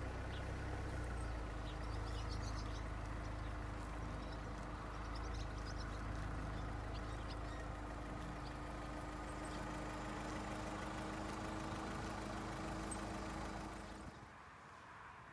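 An engine running steadily at idle, a low hum with a steady drone over it, while small birds chirp faintly. The hum drops away about fourteen seconds in.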